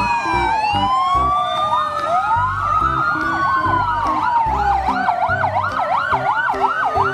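Several emergency sirens sounding together: slow wails rising and falling in pitch, joined about halfway in by a fast yelp cycling two to three times a second. Background music with a steady beat plays underneath.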